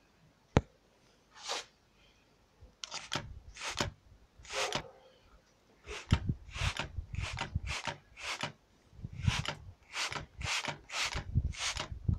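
A hand spray bottle squirting liquid onto a hot, lit halogen headlight lens as a thermal shock test, giving a short hiss with each squeeze, about fifteen squirts at one to two a second. There is a single sharp click about half a second in.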